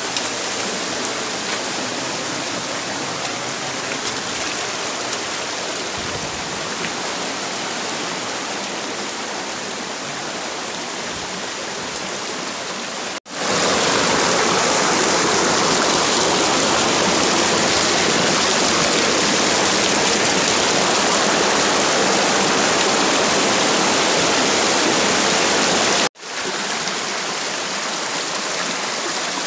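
Rocky jungle stream rushing and splashing over boulders in a steady rush of water, clearly louder in the middle, where it is heard close up at a small cascade. The sound cuts off and restarts abruptly twice at edits.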